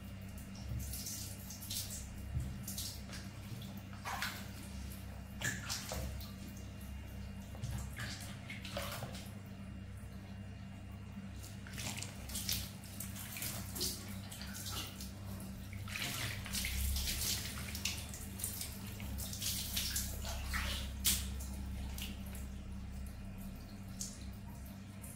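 Water from a plastic dipper splashing and trickling over a baby monkey's wet fur as a hand rubs and rinses it, in irregular splashes.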